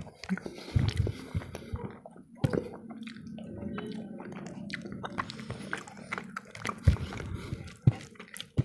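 Wet squishing of boiled rice and masoor dal being mashed and mixed by hand on a plate, with close-up mouth chewing: many small sticky clicks and smacks.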